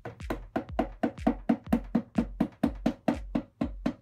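Hammer tapping rapidly and evenly on the gearbox shaft of a Honda CX500 engine to knock it out of the cases, about five light knocks a second, each with a short ringing tone.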